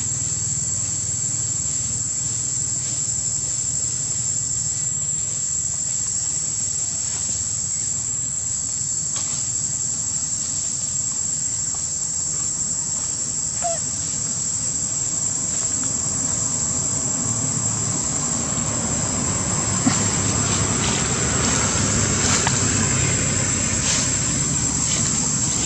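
Steady, high-pitched insect drone with a low rumble beneath it, and a few faint clicks in the last few seconds.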